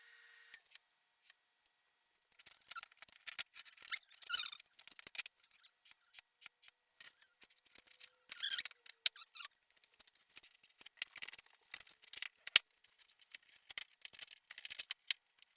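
Quiet, irregular clicking and light clattering of small parts and hand tools being handled, with a few short squeaks.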